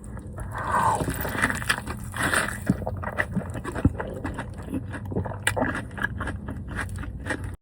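Close-up crackling and rustling from food being handled and eaten, with many small sharp clicks throughout; it starts and stops abruptly.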